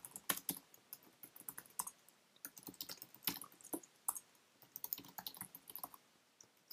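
Typing on a computer keyboard: bursts of quick, irregular keystrokes with short pauses between them.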